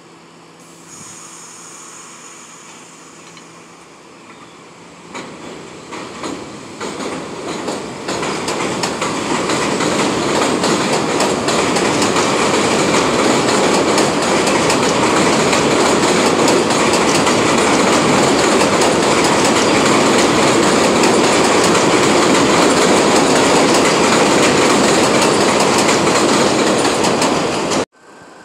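New York City subway train pulling out of an elevated station. It starts as a steady hum while standing, then builds from about five seconds in to a loud, steady rumble with clattering wheels on the rails. The sound cuts off suddenly near the end.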